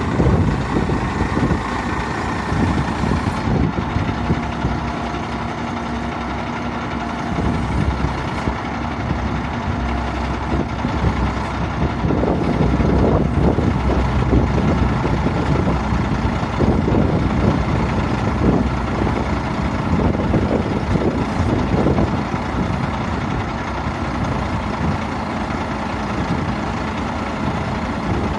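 1995 International 4900 truck's diesel engine running steadily while its National N80 crane is worked and the boom swings round. It gets somewhat louder in the middle stretch as the crane moves.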